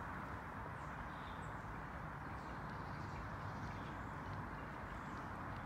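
Quiet outdoor background: a steady low rumble with faint, scattered bird chirps.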